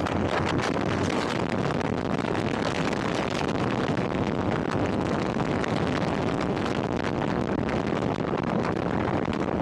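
Steady wind rushing and buffeting over the microphone, with the road noise of a moving vehicle underneath.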